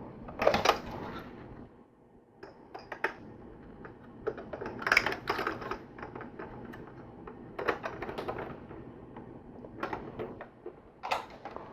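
Plastic LEGO pieces clicking and clattering as they are handled and a part is clipped onto a large brick model, in several scattered clusters of sharp clicks.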